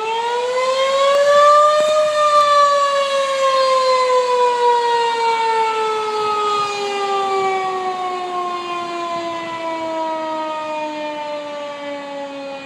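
Outdoor civil defense tornado siren sounding a short test: it winds up quickly to full pitch about two seconds in, then wails in one long, slowly falling tone as it winds down.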